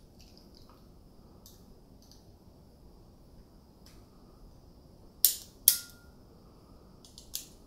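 Sharp metallic clicks from the APS CAM870 shotgun's trigger group being worked by hand to release the hammer: two loud clicks about half a second apart around five seconds in, the second with a brief ring, and lighter clicks near the end.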